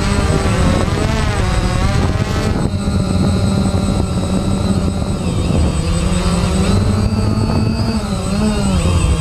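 DJI Phantom quadcopter's electric motors and propellers whining, heard close-up from its onboard GoPro Hero 3 Black. Several tones slide up and down together as the motors change speed while the drone climbs, holding steadier in the middle.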